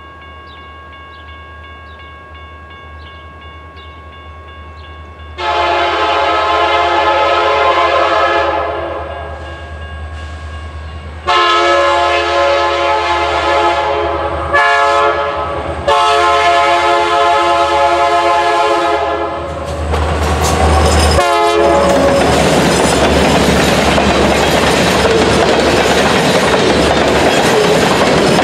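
Crossing bell ringing steadily, then the air horn of CN locomotive 5413 sounding the grade-crossing signal: long, long, short, long. About twenty seconds in, the locomotive passes close by and the loud rumble and clatter of freight cars rolling past takes over.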